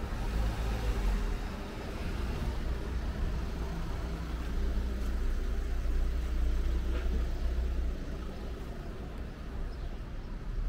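Street noise dominated by a steady low engine rumble from a motor vehicle close by.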